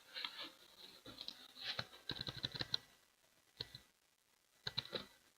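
Hands handling sealed trading-card boxes and packaging: faint, irregular clicks, taps and scratches in short clusters, thickest about two to three seconds in.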